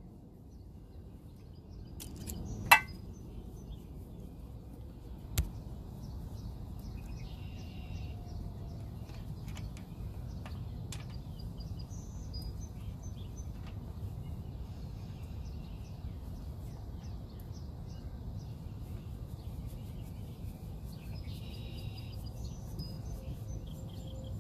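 Quiet outdoor background: a low steady rumble with faint birds chirping now and then. A sharp click about three seconds in and a softer one around five seconds in come from the compression gauge and its hose being handled.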